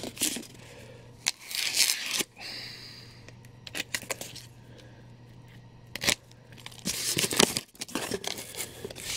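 Cardboard shipping box and its contents being handled: several irregular rasping, rustling bursts of cardboard and paper sliding and flexing, with a few sharp knocks.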